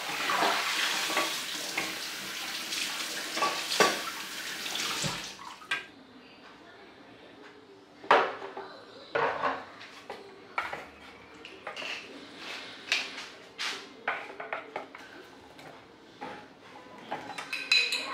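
Water running for about the first five seconds, then a metal spoon clinking and knocking against a bowl in separate strokes as ingredients are added and stirred.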